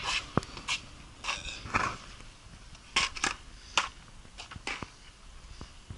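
Handling noise from a hand-held camera: a dozen or so irregular light clicks and scrapes at uneven intervals.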